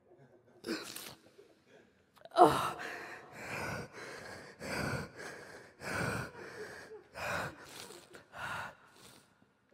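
A person weeping: a run of sobs and gasping breaths, roughly one a second, the sharpest a couple of seconds in.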